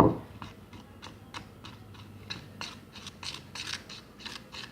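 Slime mixture being stirred in a container: a brief loud clack at the start, then irregular short scraping strokes, about two or three a second.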